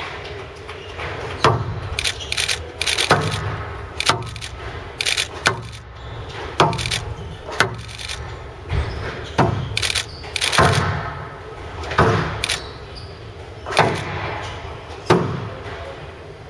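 Squash rally: the ball is struck by rackets and hits the court walls in sharp cracks about once a second, each echoing in a large hall.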